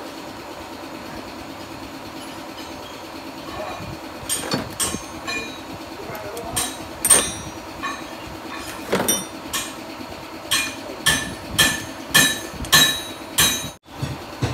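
Tools knocking and tapping on metal fittings during boat steering installation. The knocks are scattered at first, then become a steady run of sharp knocks about two a second, over a steady background hum.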